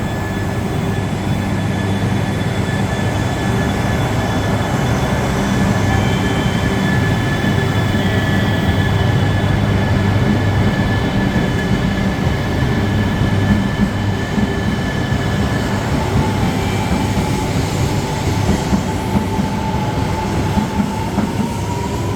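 E3 and E5 series Shinkansen set pulling out slowly, a steady hum with thin whining tones. From about three-quarters of the way in, a whine slowly rises in pitch as the train gathers speed.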